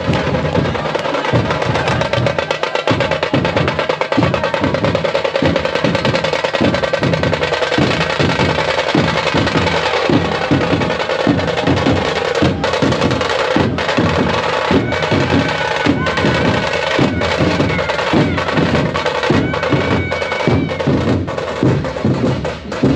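A band of large dhol drums beaten with sticks in a fast, steady rhythm, loud, with crowd noise underneath.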